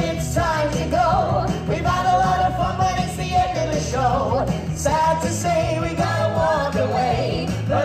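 A song: singing over a backing track with a steady beat.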